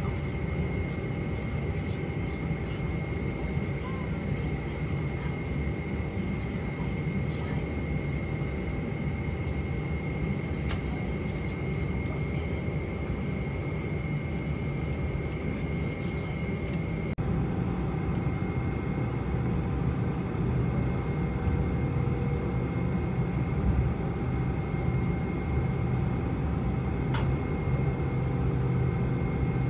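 Cabin noise of a Boeing 747-400 taxiing: a steady low rumble from the engines at idle with a thin steady whine above it. About halfway through the level steps up slightly.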